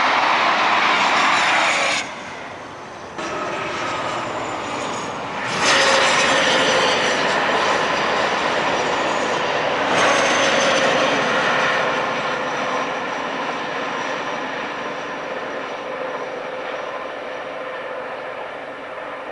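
InterCity 125 High Speed Train with its class 43 diesel power cars passing at speed: a steady rush of wheels and air with a high engine whine over it. The sound breaks off and changes abruptly several times in the first ten seconds, then slowly fades as the train draws away.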